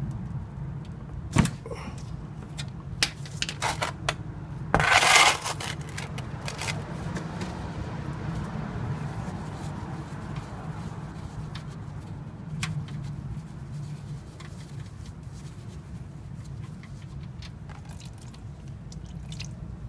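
A ratchet wrench clicking and knocking on the 14 mm oil drain plug of a Lexus IS300's oil pan as the plug is loosened, with a loud rattle of about half a second some five seconds in. The rest is quieter handling as the plug is unscrewed by hand, over a steady low hum.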